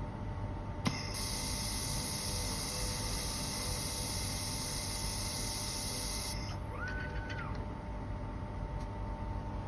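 Laser welding machine running with a steady hum; about a second in a click, then a high steady hiss for about five seconds that cuts off suddenly, followed by a brief tone that rises, holds and falls.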